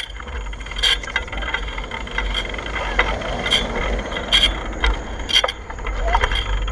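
Riding a bicycle: steady wind rumble on the microphone, with sharp clicks and rattles from the bike every second or so.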